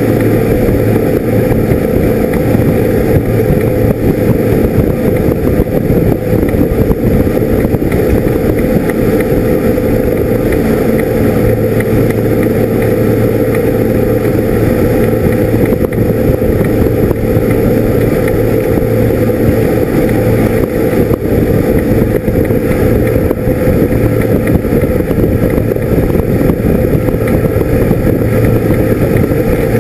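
Fishing boat's engine running at steady cruising speed, a loud constant drone that does not change, mixed with the rush of the wake and wind over the boat.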